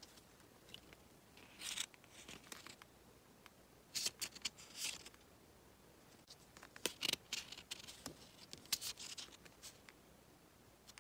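Pages of a small pad of thick patterned scrapbooking paper being turned by hand: crisp rustling and flicking snaps of the cardstock, in about four bursts, one per page turn.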